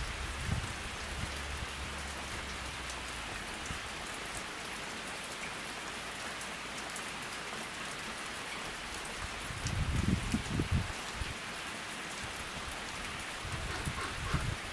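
Steady rain falling on a pond and the surrounding foliage: an even hiss with scattered ticks of single drops. A low rumble swells briefly about ten seconds in and again near the end.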